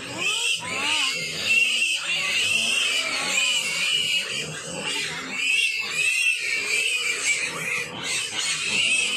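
A litter of one-month-old piglets squealing together, a continuous chorus of high, wavering cries, as pigs do when hungry at feeding time.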